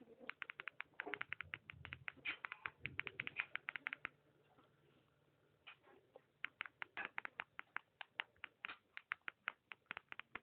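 Faint, rapid clicking of a JioPhone's keypad buttons as a word is typed in by multi-tap, several presses a second. There is a pause of about a second and a half a little before the middle.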